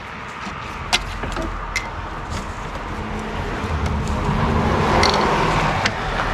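Scattered sharp clicks and handling noise as spark plug wires are unclipped from their plastic retaining clips in the engine bay. A broad rumble swells up over the second half and peaks about five seconds in.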